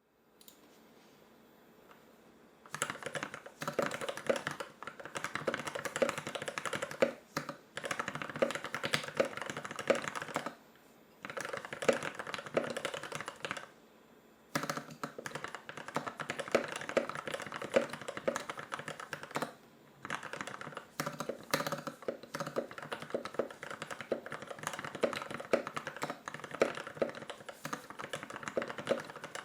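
Fast typing on a Novelkeys NK65 aluminum-case mechanical keyboard with lubed ZealPC Turquoise Tealios linear switches: dense runs of keystrokes lasting a few seconds, broken by brief pauses. The typing starts about three seconds in.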